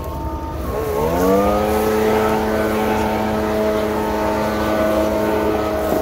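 Backpack leaf blower's engine revving up about a second in, then held steady at high throttle.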